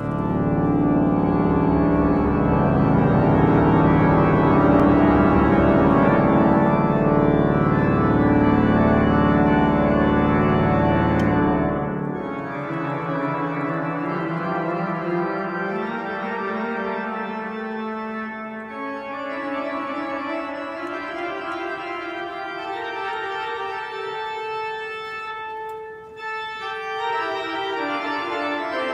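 The Salt Lake Tabernacle pipe organ being played, with sustained chords over a deep bass for about twelve seconds. Then the bass drops away and it goes on more quietly with a lighter sound.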